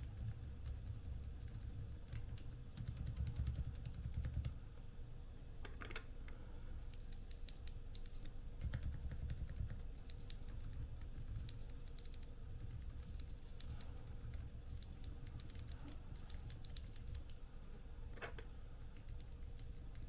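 Typing on a Zouya GMK67 mechanical keyboard fitted with Outemu Silent switches and silicone keycaps: keystrokes in bursts of quick clicks, busiest through the middle of the stretch.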